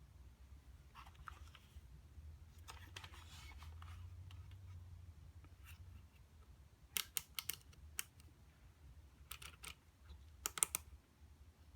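A few clusters of sharp clicks and taps in the second half, over a low steady hum, with softer scratchy handling noise before them.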